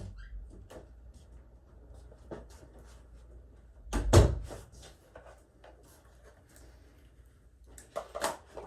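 Handling noise from moving parts around by hand: scattered clicks and light knocks, one loud thump about four seconds in, and a quick cluster of knocks near the end.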